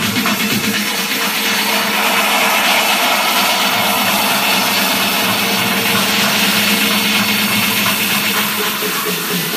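Loud techno over a club sound system in a stretch with little clear beat, heard as a dense hissing noise wash over a steady low synth tone. Stronger rhythmic hits come back near the end.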